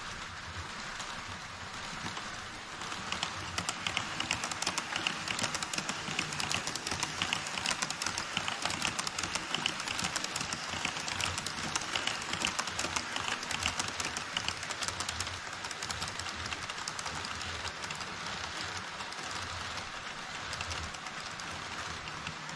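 HO-scale model trains rolling across a model truss bridge on KATO Unitrack: a steady rushing of small wheels with fast, dense clicking over the rail joints. It gets louder about three seconds in and eases a little in the second half.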